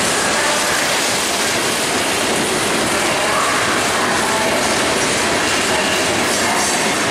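Loaded open-top hopper cars of a CSX rock train rolling past: a steady, loud rush of steel wheels on rail.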